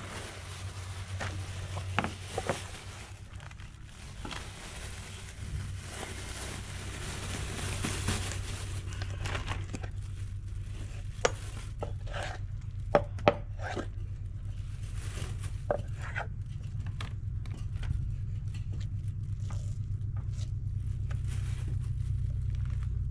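Kitchen knife cutting and scraping through an opaleye on a wooden cutting board, with a few sharp knocks of the blade or fish against the board. A steady low rumble runs underneath.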